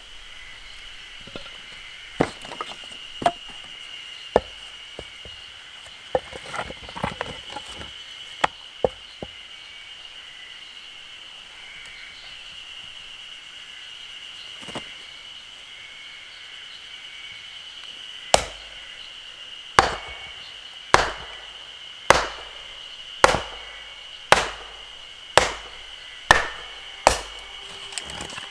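Firewood being chopped: a few scattered knocks at first, then a steady run of about ten sharp chops, roughly one a second, near the end.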